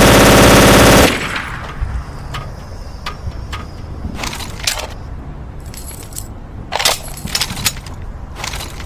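German MG42 machine gun firing a continuous, very fast burst that cuts off suddenly about a second in. After it comes a low rumble with scattered short, sharp clinks.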